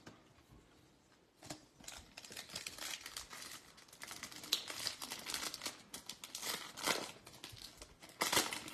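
Foil wrapper of a Topps Holiday baseball card pack crinkling and tearing as it is opened by hand, starting about a second and a half in with irregular crackles and sharp rips.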